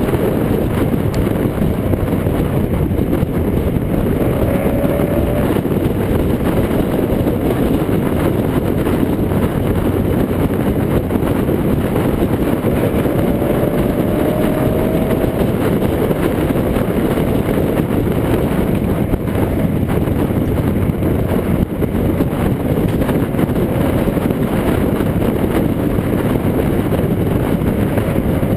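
Steady, loud wind rush and road noise on a camera mounted outside a car at speed, with the engine note rising faintly under acceleration a few times.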